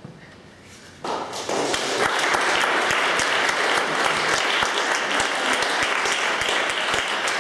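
Audience applauding: it breaks out about a second in, swells within a second, and carries on as steady, dense clapping.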